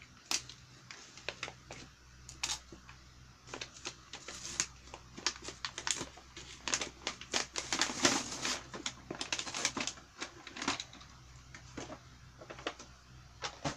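Plastic packaging being unwrapped from a plastic toy boat: irregular crinkles and clicks, busiest in the middle.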